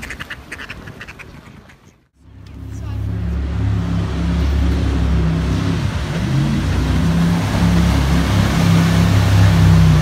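Ducks quacking faintly, cut off suddenly about two seconds in. Then a jet boat's engine runs at speed, its hum rising and shifting in pitch as the boat accelerates and turns, over the rushing noise of its water jet and the river.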